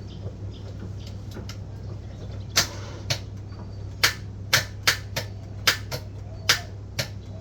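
A spanner knocking and clinking against the gear-shifter linkage bolt under a car: about eight sharp clicks at uneven intervals, starting a little past two seconds in, over a steady low hum.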